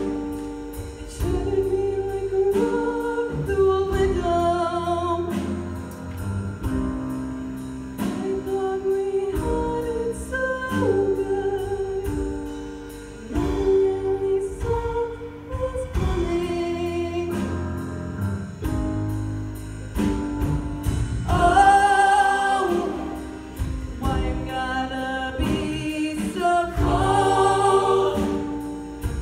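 A mixed show choir singing a song in harmony, held chords over low bass notes, swelling louder twice in the last third.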